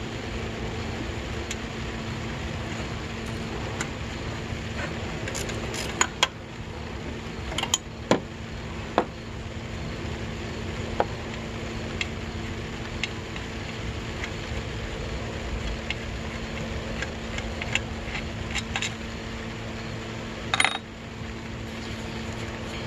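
Scattered sharp metal clinks and taps of hand tools on metal while an alternator is being removed from a truck, over a steady low hum.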